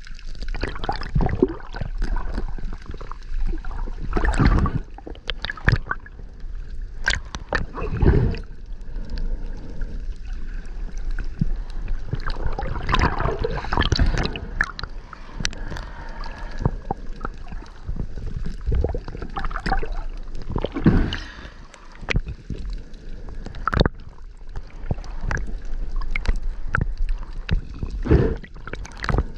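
Water sloshing and gurgling, with irregular knocks and bumps scattered throughout.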